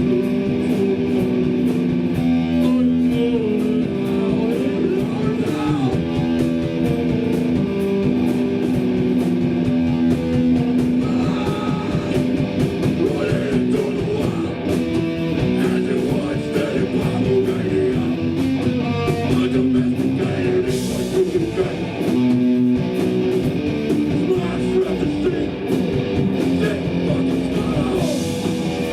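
A hardcore punk band playing live: loud electric guitars holding chords over a steady drum beat with cymbal hits.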